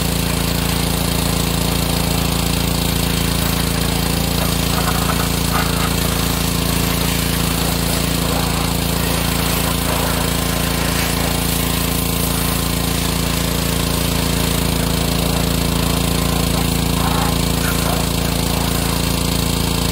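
Pressure washer running steadily, its motor droning under the hiss of the high-pressure water jet spraying the mower.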